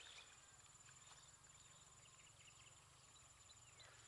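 Faint rural ambience, near silence: a steady, high insect trill with scattered short chirps.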